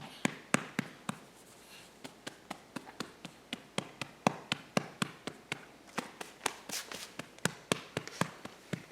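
Hand patting a baby's back to bring up a burp: soft, even pats at about four a second, with a brief pause about one and a half seconds in.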